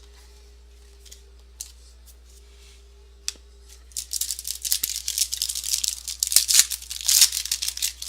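Trading cards and their pack packaging being handled: a few light clicks, then from about four seconds in a quick run of rustling and scraping.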